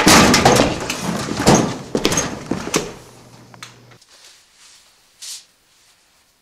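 Scuffling and bangs against metal school lockers, with several sharp knocks in the first three seconds. The noise fades and drops away about four seconds in, leaving near quiet with one short hiss about a second later.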